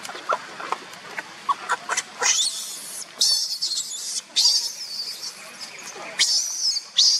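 Infant macaque screaming: a string of shrill, high squeals that starts about two seconds in and comes back several times. This is a hungry baby crying to be nursed.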